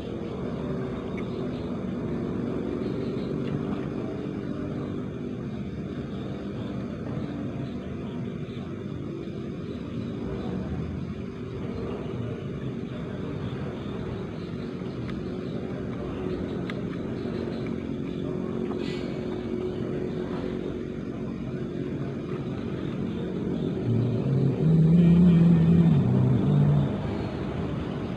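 A steady low motor hum, engine-like, with a louder and deeper drone for a few seconds near the end.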